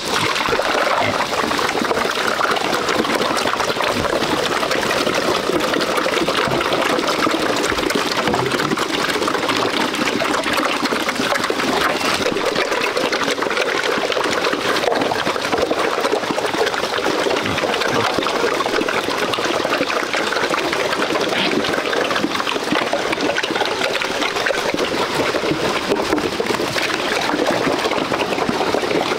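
A herd of pigs eating wet slop from a trough, a steady wet slurping and chomping with no let-up.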